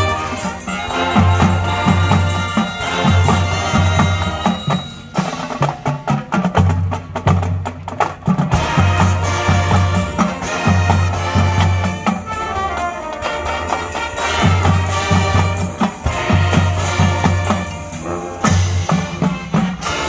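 Marching band playing its field show: brass and drums together, with heavy low bass hits in a repeating pattern and a brief drop in volume about five seconds in.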